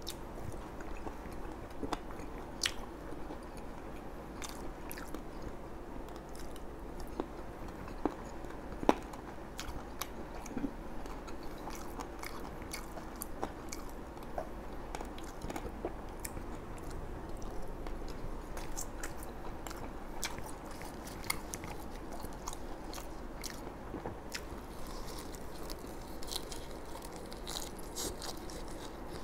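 Close-miked eating: a person chewing and biting food from a platter of fried tofu, pork and fresh herbs, with many scattered small crunches and mouth clicks.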